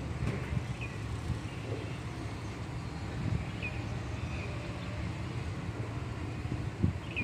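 Outdoor ambience: a steady low rumble, with a few faint, short high chirps scattered through it.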